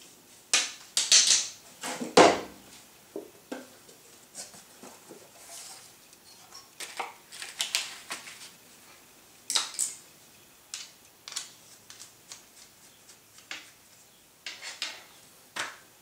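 Shotgun cleaning rod and kit being handled as the rod's brush head is swapped for a soft head: scattered metallic clicks, clinks and knocks, loudest in a cluster in the first couple of seconds, then sparser taps while pieces are taken from a wooden kit box.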